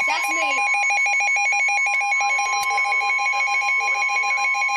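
Weather radio alert for a tornado warning: rapid, even beeping on two pitches with a steady long tone under it, the NOAA Weather Radio warning alarm tone. A single click about two and a half seconds in.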